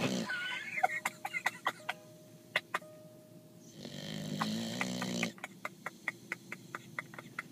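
Mastiff snoring while awake: one snore tails off at the start and another, drawn out, comes about four seconds in. Each is followed by a run of sharp clicks, the second run faster and more even at about five a second.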